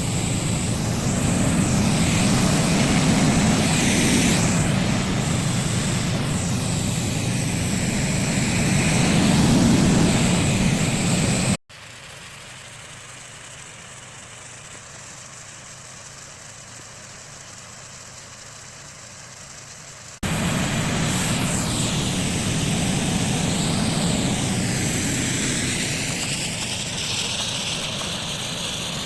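Artificial snow machine running, a steady loud fan-like drone. About 11 seconds in it cuts off abruptly to a much quieter steady hum, and about 20 seconds in it jumps back to full loudness.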